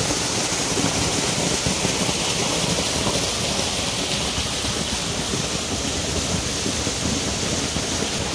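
Water rushing steadily: an even hiss with no breaks.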